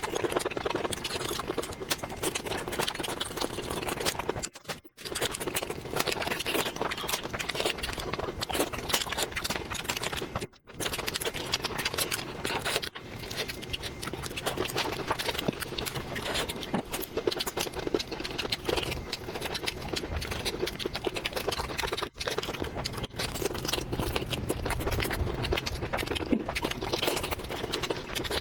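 Close-miked mukbang eating sounds: continuous chewing and mouth clicks, broken by a few short silent gaps.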